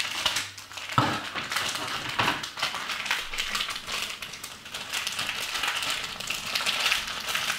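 Crinkling and rustling of a thin plastic blind-bag wrapper as it is cut open with scissors and pulled apart by hand, with a sharper crackle about a second in.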